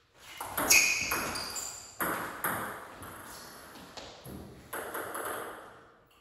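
Table tennis rally: the plastic ball clicks off the paddles and pings on the table in a run of sharp hits, the loudest just under a second in.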